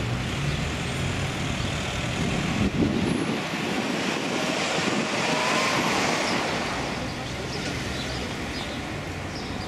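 Road traffic: a motor vehicle passes, its noise swelling to a peak about halfway through and then fading. A single short knock sounds a little under three seconds in.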